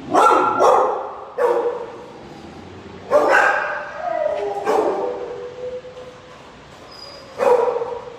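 Shelter dogs barking in their kennels: about seven loud barks, irregularly spaced. One bark, a little past the middle, trails into a drawn-out held note.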